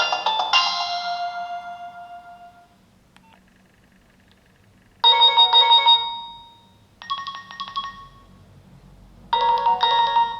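Nokia 6070 polyphonic ringtones through the phone's small speaker. A melody fades out about three seconds in, and a faint click follows. Then come three short bursts of ringtone melody, about five, seven and nine seconds in.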